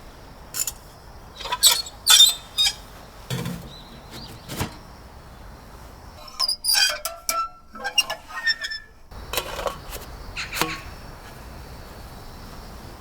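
Irregular knocks and clinks of hard objects being handled, some ringing briefly like sheet metal, clustered in the first ten seconds and then giving way to a faint steady background.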